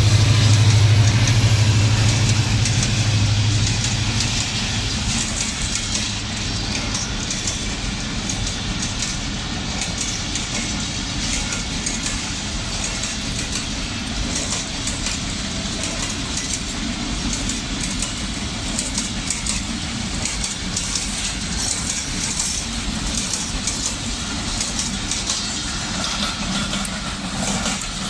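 A train passing on the tracks: a diesel locomotive's low engine hum fades away over the first few seconds, then the cars roll past with continuous wheel and rail clatter.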